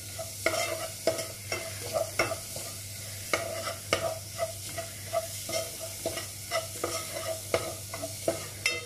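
Steel spoon stirring and scraping mustard seeds, fenugreek, dried red chillies and curry leaves frying in coconut oil in an aluminium pot, with irregular clinks of the spoon against the pot over a steady sizzle.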